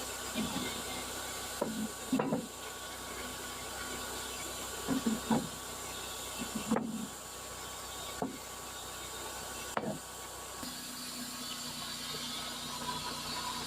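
Band sawmill running through a sycamore log, a steady hissing saw sound with several short knocks every second or two. The steady sound changes about ten and a half seconds in.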